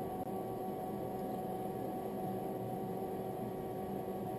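Steady hum with a hiss beneath from a homemade water still: a small butane gas stove heating a sealed kettle that has just started to bubble at the boil, together with the pump that circulates cold water through the condenser coil.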